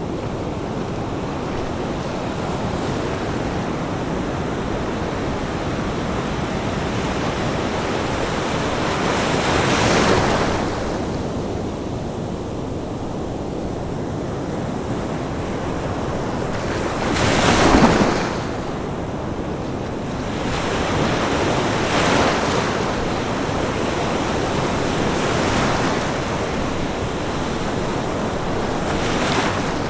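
Ocean waves breaking on a beach over a steady wash of surf, with several breakers swelling and falling away, the loudest about halfway through. Some wind noise on the microphone.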